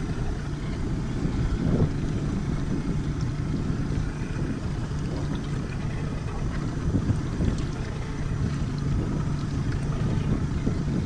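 Steady rumble aboard a small fishing boat at sea: a low, even engine hum with wind buffeting the microphone.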